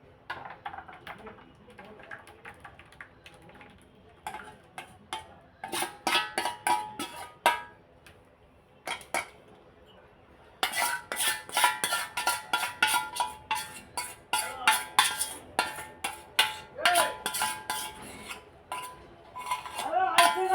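A spoon clinking and scraping against a bowl as cake batter is poured and scraped out, in scattered clinks at first and then a quick, louder run of clinks from about halfway through.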